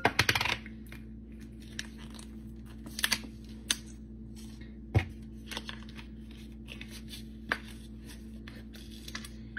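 Plastic squeeze bottle of mayonnaise being opened: a short burst of tearing and crinkling near the start as the cap and inner seal come off, then scattered small clicks and taps of the bottle being handled. A steady low hum runs underneath.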